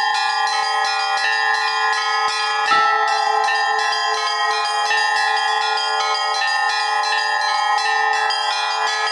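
Russian Orthodox church bells rung by hand in a rapid, continuous chiming pattern, with small upper bells and middle-row bells played together by two ringers. A heavier, louder stroke comes in nearly three seconds in.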